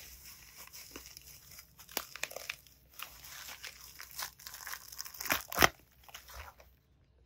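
Plastic bubble wrap crinkling and crackling as it is handled and pulled off a graphics card, in irregular sharp crackles, the loudest about five and a half seconds in.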